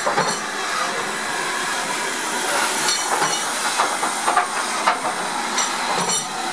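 Two steam tank locomotives, GNR N2 0-6-2T No. 1744 and BR Standard Class 4 2-6-4T No. 80072, moving slowly past at close range with a steady hiss of steam. A few sharp metallic knocks come around the middle, and there are several brief high squeaks.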